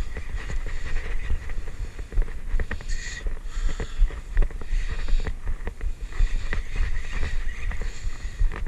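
YOLO 4000 spinning reel being cranked, its rotor and gears whirring with many fast small clicks, over a low, uneven rumble on the microphone. The angler says the reel is acting up.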